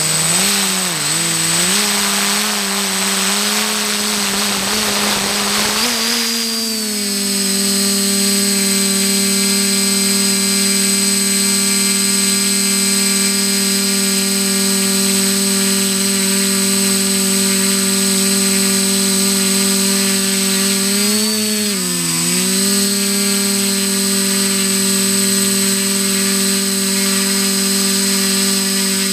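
XJ470 multirotor drone's electric motors and propellers whining in flight, heard from the camera on the drone. The pitch wobbles for the first several seconds, then settles into a steady hum, dipping briefly a little past the middle as the motors slow and speed up again.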